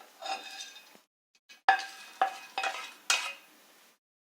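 Metal spoon scraping and knocking against a pan as dry-roasted peanuts are scooped out. Four sharp ringing clinks come in the second half.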